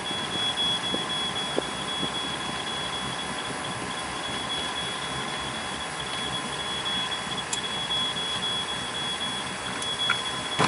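Steady rush of noise aboard a motorboat under way, with a thin, steady high-pitched whine over it.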